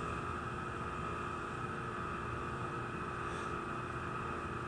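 Steady hum and hiss inside the cab of an E233 series electric train standing at a station, with a constant whine from its onboard electrical equipment.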